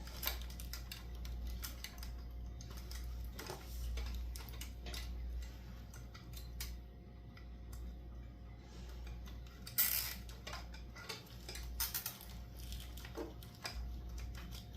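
Scattered small clicks and ticks of hands working zip ties and fittings on a bicycle, irregularly spaced, with a sharper click about ten seconds in, over a steady low hum.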